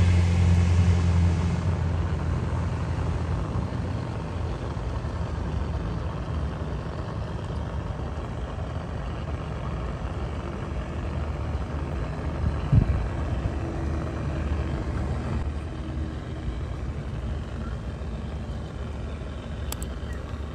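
Radio-controlled scale crawler trucks driving over rough dirt and rocks: a steady low motor hum that fades over the first few seconds into a duller, noisier running sound, with one knock near the middle.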